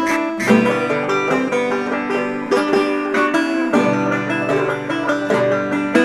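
Background instrumental music of quickly plucked strings.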